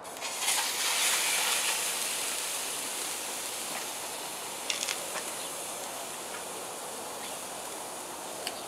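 Leg of fallow deer searing on a hot grill grate over charcoal: a sizzle starts as the meat is laid down, loudest in the first second or two and then slowly easing, with a few sharp pops about five seconds in.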